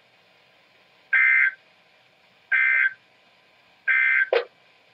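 Emergency Alert System end-of-message data tones: three short identical bursts of warbling digital data, about a second and a half apart, marking the end of the alert. A brief blip comes right after the third burst.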